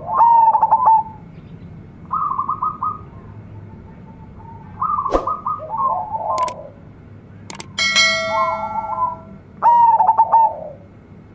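Zebra dove (perkutut) singing its cooing song in quick, trilled phrases, four phrases in all.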